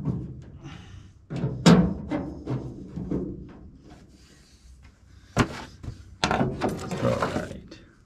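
Background music with sharp percussive hits, quieter in the middle.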